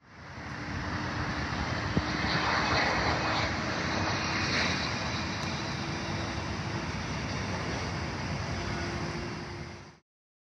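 Jet airliner engines, a steady rush of noise with a faint low hum, swelling a couple of seconds in and easing back, then cut off suddenly near the end.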